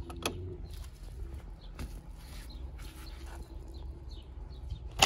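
Quiet outdoor background with a steady low rumble, a couple of light clicks near the start and a few faint taps as die-cast toy cars are handled on a plywood ramp.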